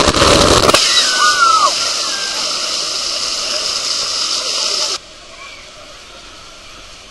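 Water splashing loudly over the camera, then a steady rushing hiss of water with a couple of brief falling cries. About five seconds in the sound drops abruptly to a much quieter background of a crowd at a pool.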